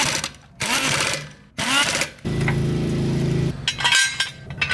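Air impact wrench spinning lug nuts onto a car wheel in short bursts, each revving up and dropping away, then running steadily for about a second as it snugs a nut down. Near the end come metal clanks and rattles from a steel jack stand being released.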